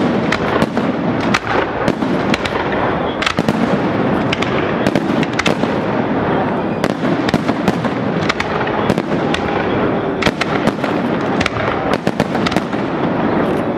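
Aerial fireworks display: a dense, unbroken barrage of shell bursts and crackling, with many sharp cracks at irregular intervals over a steady rumble.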